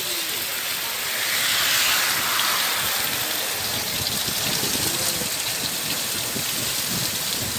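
Heavy monsoon-type downpour: dense rain falling and hissing steadily on foliage and waterlogged ground, swelling louder for a couple of seconds about a second in.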